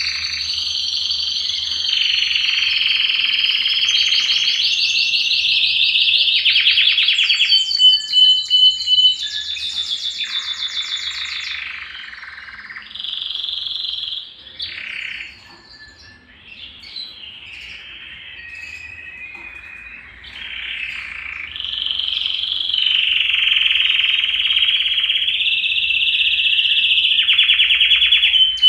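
Domestic canary (canário belga) singing a long continuous song of rapid rolling trills and clear whistled notes. The song turns softer and more broken for several seconds in the middle, then swells back into loud trills.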